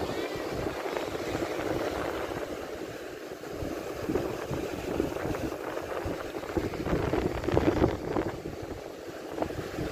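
Wind buffeting the microphone in an uneven rumble over the wash of sea waves, with gusts swelling loudest near the end.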